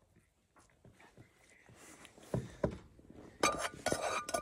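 A spatula scraping and knocking against a saucepan while rice is served from it onto a plastic plate. There are two sharp knocks about two and a half seconds in, then a quick run of clicks and scrapes near the end.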